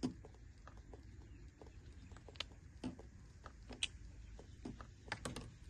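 Faint, irregular wet clicks and smacks from a baby monkey sucking at a milk bottle.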